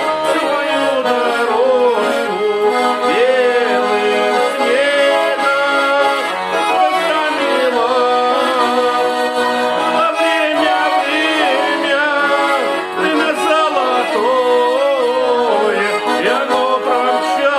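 Accordion music: a melody that bends and wavers over sustained chords, playing continuously.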